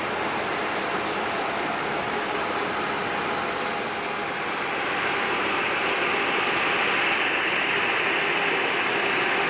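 Steady jet-engine noise from airliners on the apron, swelling slightly about halfway through with a brighter hiss.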